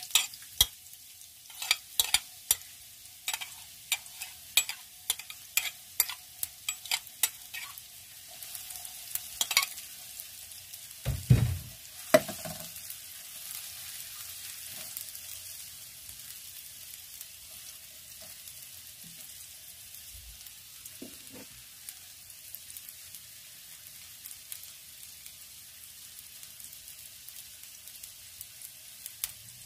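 Sliced red onions frying in hot oil in a non-stick pan: a sizzle with frequent sharp crackling pops just after they go in. A couple of dull knocks come about eleven to twelve seconds in, then the sizzle settles into a steadier, quieter hiss.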